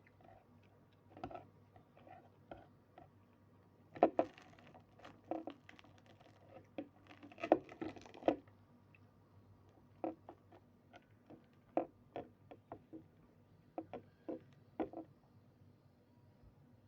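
A person eating close to the microphone: irregular short clicks and crunchy bites, with louder clusters about four seconds in and again around seven to eight seconds.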